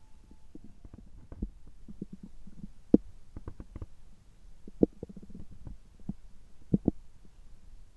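Stomach gurgling right after a gastroscopy: a run of small, low bubbling pops and gurgles. Louder pops come about three seconds in and near five seconds, then a close pair near seven seconds.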